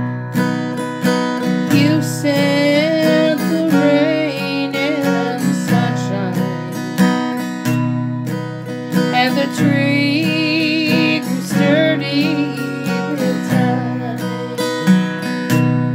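Cutaway acoustic guitar strummed in a steady rhythm, with a woman singing along in stretches.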